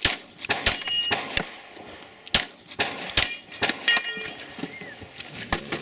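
Sharp metallic clangs of steel shooting targets being struck, about ten at irregular intervals, several ringing on briefly.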